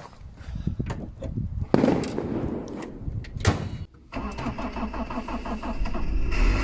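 Vehicle engine being started on a mild winter day with its battery just put back in: it cranks and catches at once, then settles into a steady, even idle from about four seconds in.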